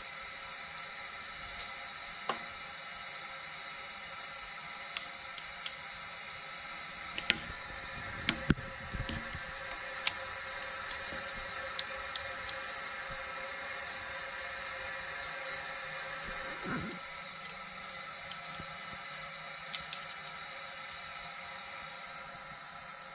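A steady hiss of shop background noise with scattered sharp metal clicks and taps, the loudest about a third of the way in, as a lever-type valve spring compressor is worked on a Vortec 4.3 V6 cylinder head's valve springs. A dull thump comes about three quarters of the way through.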